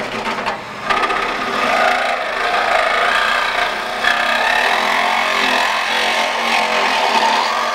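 Ingersoll Rand 12V cordless compact reciprocating saw cutting through car-body sheet metal, starting about a second in and running steadily.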